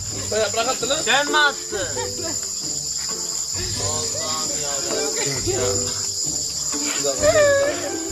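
Crickets chirring steadily, a continuous high-pitched chorus, with people's voices talking quietly over it now and then.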